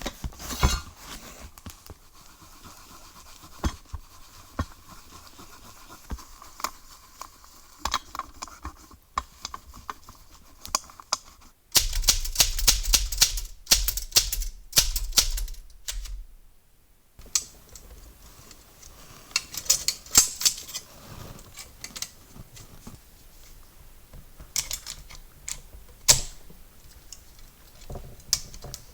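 Cleaning and handling of a vintage Royal typewriter's body: brushing and rubbing sounds with scattered clicks. Around the middle comes a louder spell of rapid scrubbing strokes, then separate sharp clicks and taps as parts are handled.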